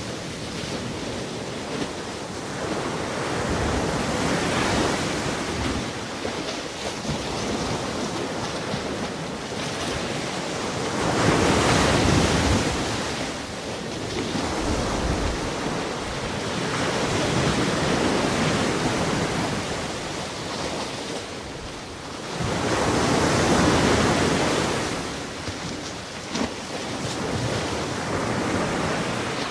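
Surf washing onto a sandy beach, a steady rush of water that swells and ebbs about every six seconds.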